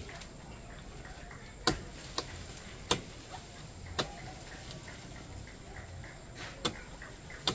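A palm wine tapper's knife striking and paring the cut tapping face at the top of a palm, refreshing the cut so the sap flows fresh: about six sharp, short knocks at uneven intervals, with a longer gap in the middle.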